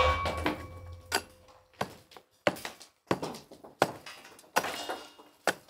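A series of sharp knocks, about one every two-thirds of a second, as the steel I-beam is set into its masonry wall pocket. The steel rings briefly at the start after a strike, and again faintly near the end.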